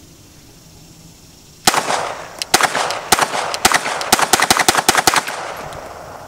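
Rapid string of more than a dozen 9mm pistol shots in about three and a half seconds, starting about a second and a half in, from a Gen 4 Glock 19 Roland Special with a KKM compensator and a 13-pound recoil spring.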